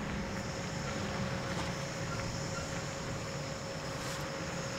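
Standing JR 381 series electric train humming steadily, the sound of its onboard equipment running while the train waits: a low hum with a steady mid-pitched tone and a faint high whine.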